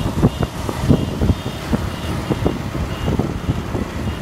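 A motorbike being ridden along a road, heard from the rider's position: engine running with road noise, broken by irregular low thumps.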